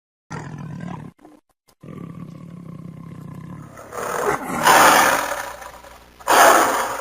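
Big cat growling low and rumbling, then roaring loudly twice: the first roar about four seconds in, the second near the end.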